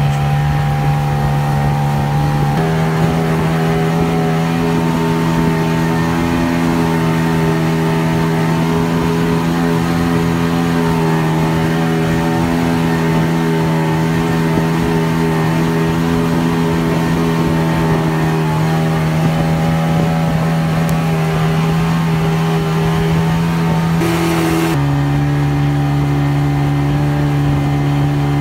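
Boat's engine running steadily at speed, a loud, even drone over the rush of water along the hull. The pitch of the drone steps up slightly a few seconds in and drops back near the end.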